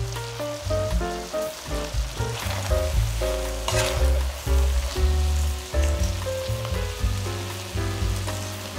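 Aubergine, red pepper and potato stew sizzling in a stainless steel pot as a spatula stirs it, with one louder scrape or rustle about four seconds in. Background music of changing notes over a steady bass plays throughout.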